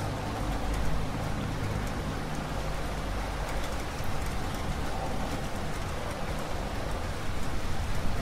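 Steady rain, an even hiss with scattered drop taps, with a low rumble underneath for the first few seconds.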